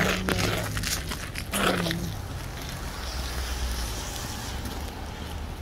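Outdoor street noise: a steady low rumble of traffic with wind on the microphone. In the first two seconds there is a louder pitched sound with a few sharp clicks.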